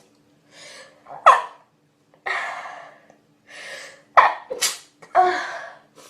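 A person sneezing several times in a row, each sharp sneeze preceded by a quick in-breath.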